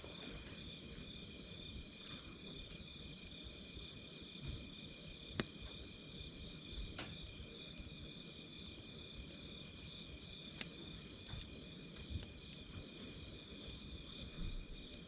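Campfire crackling with a few sparse, sharp pops, over a steady high chirring of insects such as crickets.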